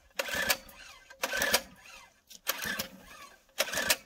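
Small petrol engine on a syrup transfer pump being pull-started again and again: about four quick recoil-cord pulls, each a short whirring crank, and the engine never fires. It will not catch because its kill switch was left in the off position.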